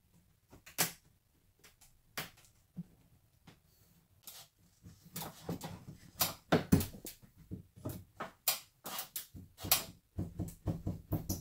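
A metal pry bar knocking, scraping and prying at the wooden trim and header of a door frame, giving irregular sharp taps and knocks. It starts sparse and gets busier from about halfway through.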